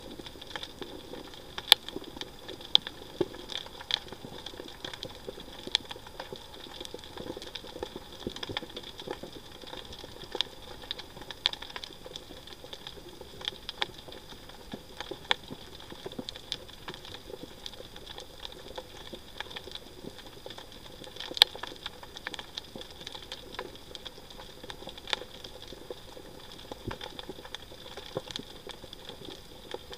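Underwater reef ambience: irregular sharp clicks and crackles, a few a second, over a steady hum and hiss. Two louder snaps stand out, about two seconds in and about two-thirds of the way through.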